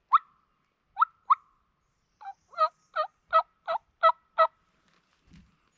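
Turkey calling in a hen's voice: three short sharp clucks, then a run of about seven yelps, roughly three a second.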